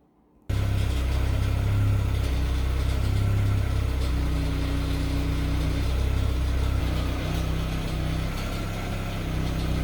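Car engine idling steadily, starting abruptly about half a second in.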